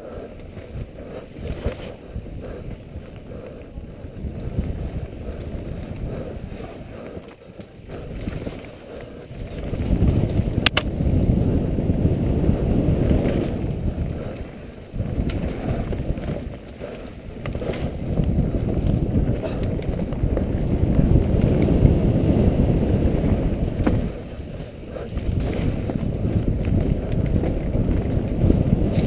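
Mountain bike rolling fast down a dirt forest trail, heard as a rough rumble of tyres and wind buffeting on a helmet-mounted camera's microphone, swelling and easing with speed and growing louder about ten seconds in.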